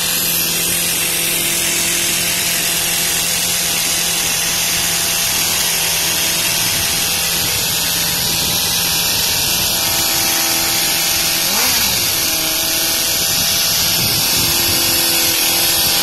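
2003 Suzuki GSX-R 600's inline-four engine running at a steady idle just after being started from a hot-wired harness, with one quick throttle blip about twelve seconds in.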